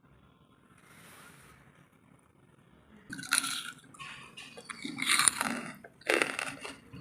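Close-miked bites and crunching of pieces of wood charcoal, starting about three seconds in, with several loud crunches after a quiet start.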